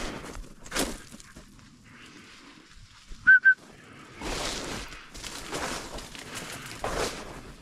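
Two short whistle pips in quick succession, each rising and falling slightly in pitch, over intermittent swishing of footsteps through dry grass cover.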